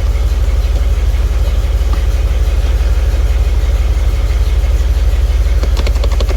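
A 1995 GMC C1500 pickup's engine idling steadily, with a quick run of clicks near the end.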